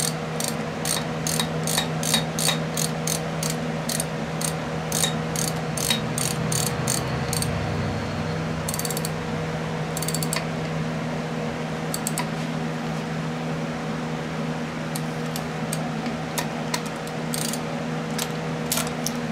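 Hand ratchet wrench clicking as it is swung back and forth, turning nuts at the injection pump of a Cummins 4BT diesel. About three to four clicks a second for the first six seconds, then short bursts of clicks, over a steady hum.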